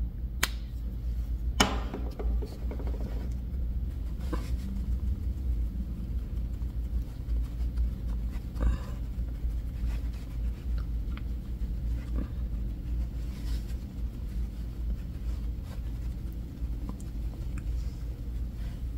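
A steady low hum with a few soft clicks, taps and rubs from makeup products and brushes being handled and applied.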